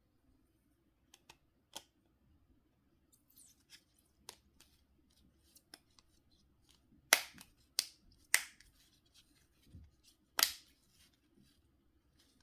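Small parts of a Nokia C5-00 mobile phone being handled by hand: scattered faint clicks, then four louder sharp snaps in the second half.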